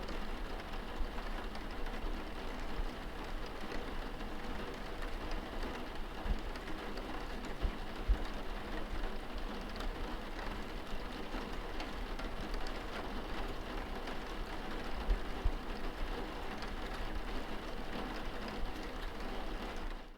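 Rain hitting a skylight window, heard from inside the house: a steady patter of many small drop taps, with a few heavier low thuds. It cuts off suddenly at the end.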